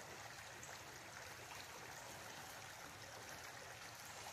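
Near silence: a faint, even background hiss with a few faint small ticks.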